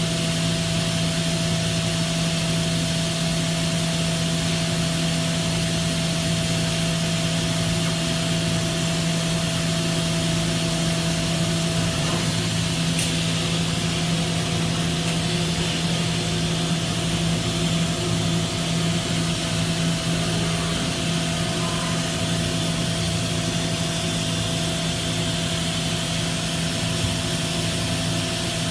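Makino F5 CNC vertical machining center running steadily: an even mechanical hum with a low drone and a thinner higher tone held constant over a wash of noise.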